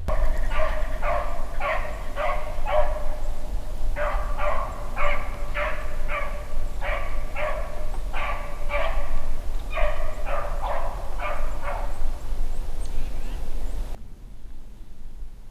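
Beagle baying on a rabbit's track: runs of short, pitched barks at about three a second, breaking off briefly twice and stopping about twelve seconds in, over a steady low rumble.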